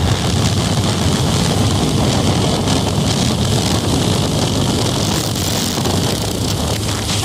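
Motorcycle running at steady cruising speed, with wind buffeting the camera microphone.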